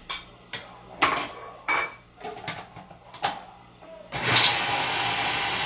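Knocks and clicks of a food processor's plastic lid being fitted, then about four seconds in the motor starts and runs steadily, blending cooked chickpeas into a purée.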